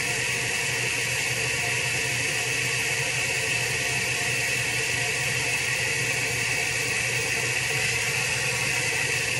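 Steady hiss with a faint low hum, unchanging throughout, like continuous room or appliance noise.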